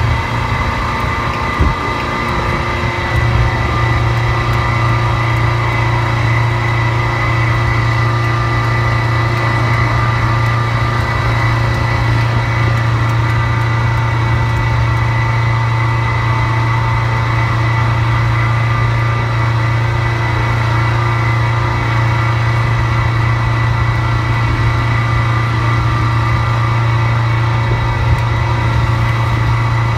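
A motor running steadily: a constant low hum with a steady faint higher whine that does not change in pitch.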